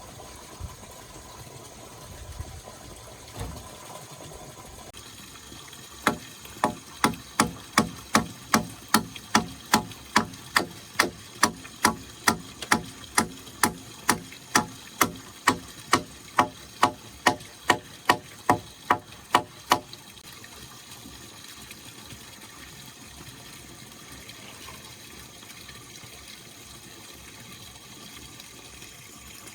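A hand tool striking repeatedly, about two blows a second for some fourteen seconds, starting about six seconds in. A steady rush of water runs throughout.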